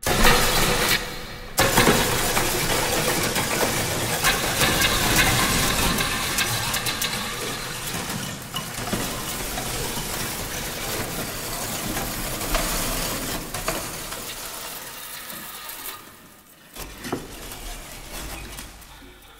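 A shower of burning sparks fizzing and crackling as a dense hiss. It starts suddenly, fades slowly and thins out after about sixteen seconds, leaving a few separate crackles near the end.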